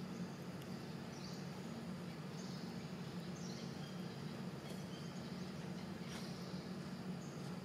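Outdoor ambience: a steady low hum with short, faint high chirps every second or two.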